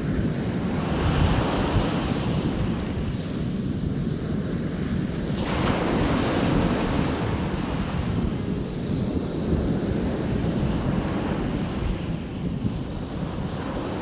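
Small sea waves breaking and washing up a pebbly sand shore in slow surges, with wind buffeting the microphone. A bigger wave breaks about five or six seconds in.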